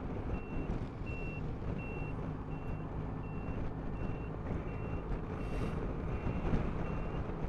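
Electronic turn-signal reminder beeper beeping evenly, about three short high beeps every two seconds, over a steady low rumble from the scooter.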